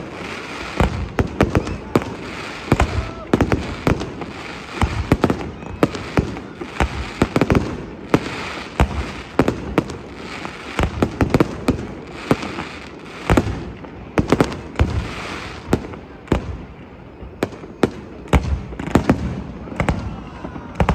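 Aerial fireworks display: a dense, irregular run of shell bursts with crackling between them, thinning out briefly about three-quarters of the way through before the bursts pick up again.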